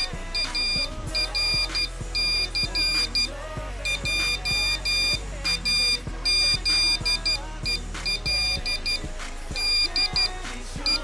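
Morse code: a high beep tone keyed on and off in short and long pulses, dots and dashes with gaps between letters, over background music.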